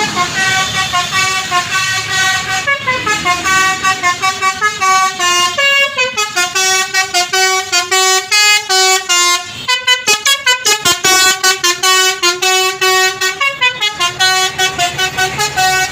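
Basuri telolet horn on a bus playing a fast melody of short, stepped horn notes, loud and rhythmic at about three notes a second, with a brief break a little past the middle before the tune carries on.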